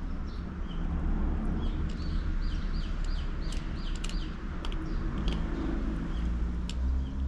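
Wild birds calling with short chirps, including a quick run of repeated curved notes in the middle, over a steady low rumble.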